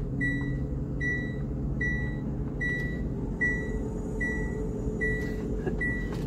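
An electronic warning beeper sounding about eight evenly spaced beeps, a little under a second apart, all on one pitch, over a lorry's engine running in the cab.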